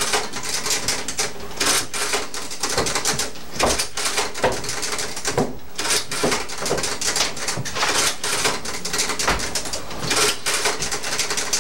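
Mechanical adding machine clattering as its keys are punched over and over, a fast, dense run of clacks and clicks with no break.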